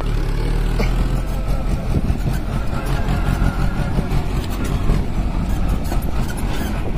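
Two-wheel walking tractor's engine running steadily as it hauls a trailer loaded with harvest sacks along a dirt track.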